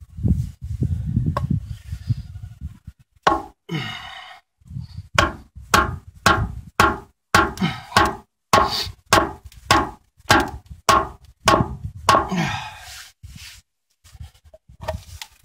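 A hammer striking down on the spine of a Glock knife again and again, about fifteen sharp knocks at roughly two a second, each with a short metallic ring, driving the blade through copper wire and into a groove where it sticks. Some handling and a short scrape come before the run of strikes.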